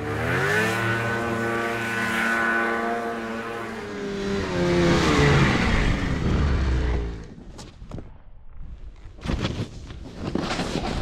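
Snowmobile engine revving hard, its pitch climbing in the first second and held high while the sled is forced up a steep slope. About seven seconds in the engine drops away, leaving scattered sharp knocks and scrapes.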